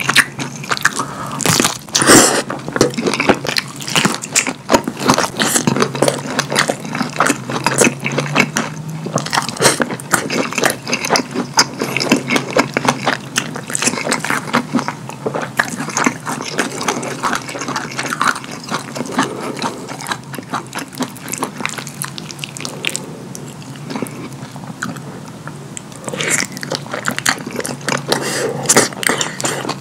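Close-up wet chewing and lip smacking of kielbasa sausage dipped in cheese sauce, and of lasagna: a dense run of sticky mouth clicks and squelches.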